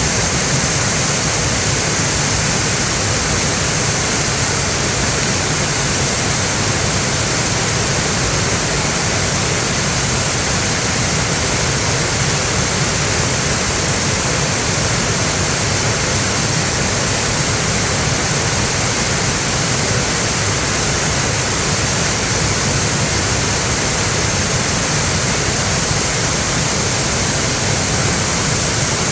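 Mountain valley stream rushing strongly over rocks, swollen with rain: a loud, steady rush of water.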